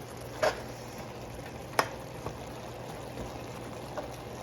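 Chicken feet bubbling and sizzling in a pot of caramelising brown sugar, browning the meat, with two light knocks of a spoon on the pot and a steady low hum underneath.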